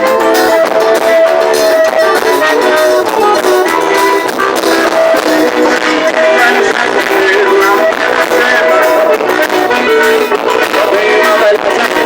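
Forró music in xote style playing continuously with a steady, regular beat.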